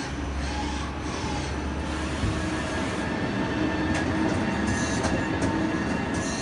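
Mori Seiki SL-25B CNC lathe running a program with its spindle turning: a steady mechanical hum with several held tones, and a few light clicks near the middle and end.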